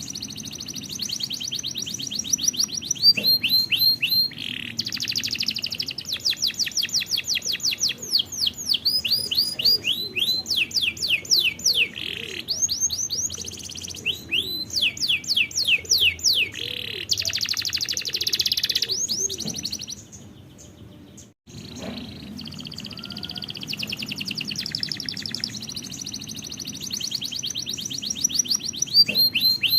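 Domestic canary singing a long song of fast trills and rapid runs of repeated down-sweeping notes, with a brief break about two-thirds of the way through.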